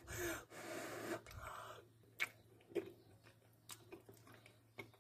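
Faint chewing of a mouthful of soft baked food in a creamy cheese sauce, followed by a few small isolated clicks.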